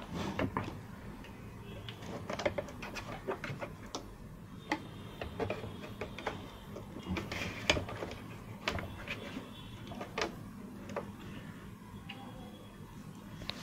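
Irregular small clicks and taps of tools and parts being handled during work on a computer's internals, over a faint steady low hum.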